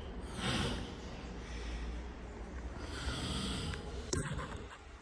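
A sleeping man snoring: two noisy snores about two and a half seconds apart, with a short sharp click about four seconds in.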